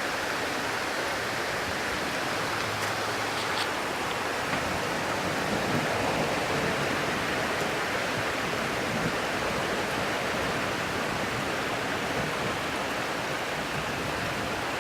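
Heavy rain pouring steadily as an even rushing hiss, with no thunder standing out.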